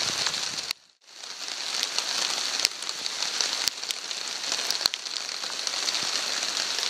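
Steady light rain falling on a tarp and the surrounding woods, a continuous hiss with scattered sharper drop ticks. The sound cuts out briefly about a second in and then comes back.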